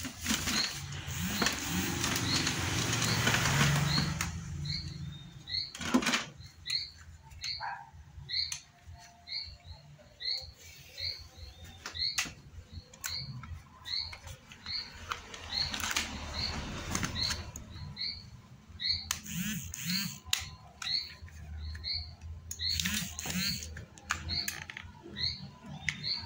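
A small bird chirping over and over at an even pace, about one short chirp every 0.7 seconds. Rustling and handling noise in the first few seconds and a single sharp knock about six seconds in.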